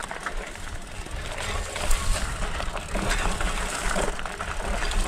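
Brush and twigs rustling and crackling as a mountain bike and its rider push through overgrown vegetation, with many small snaps and a steady low rumble underneath.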